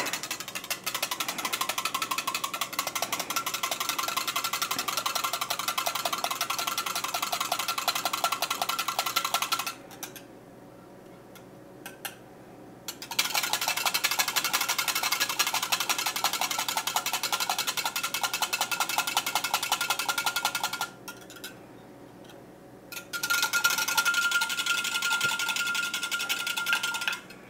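Small handheld electric mixer whisking yogurt mix inside glass quart jars, one jar after another. It whirs steadily in three runs of several seconds each, with two short stops between them.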